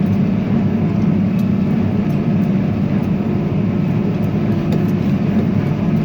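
Tractor engine running steadily while pulling a square hay baler through dry hay, with faint regular ticks from the machinery above the engine's hum.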